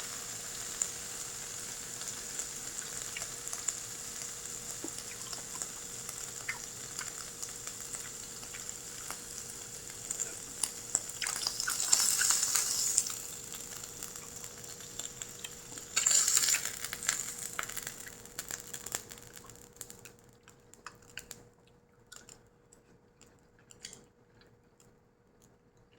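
Japanese A5 Wagyu beef sizzling on a hot iron plate, a steady hiss with scattered crackles and pops of fat. The sizzle swells twice in the middle, then dies away to faint, occasional crackles near the end.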